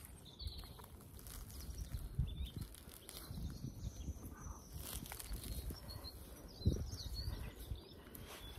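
Wind buffeting a phone microphone in gusts, over rustling grass and clods of soil and turf being handled. A dull thump comes about two-thirds through, and faint bird chirps sound in the background.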